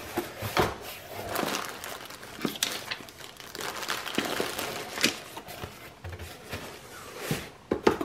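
Cardboard shipping box and plastic air-cushion packing being handled: irregular crinkling and rustling with scattered knocks and scrapes, the loudest near the end as a small cardboard box is set down on the table.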